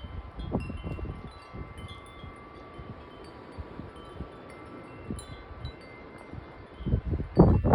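Metal wind chimes ringing steadily in strong, gusty wind, with scattered high pings. Wind buffets the microphone throughout, and a heavy gust hits near the end.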